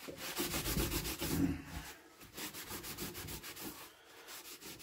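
Cloth rag scrubbed quickly back and forth over the painted sheet-metal cowling of a BSA stationary engine, rubbing at a stuck-on sticker. The strokes come in two runs with a short pause about two seconds in, and fade to lighter rubbing near the end.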